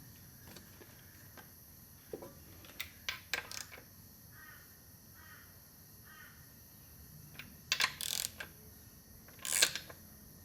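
Sharp clicks and knocks of metal tools and parts being handled, in two clusters, the loudest knock near the end, with a few faint bird calls in between.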